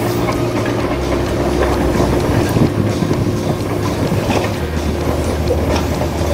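Radio-controlled excavator and dump truck running: a steady hum of small electric motors and gears, with scattered clicks and rattles of soil clods.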